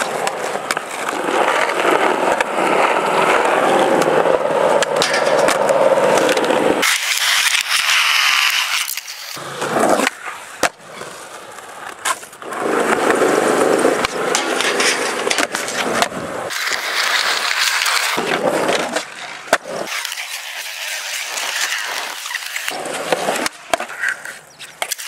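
Skateboard wheels rolling over rough concrete, broken by sharp wooden clacks of the board popping and landing.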